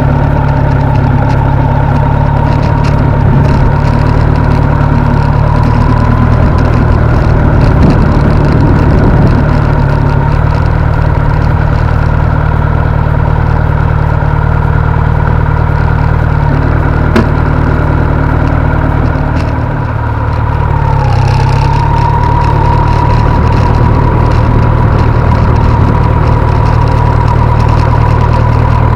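Kawasaki Z900's inline-four engine running at a steady speed, dipping briefly about twenty seconds in and then picking back up.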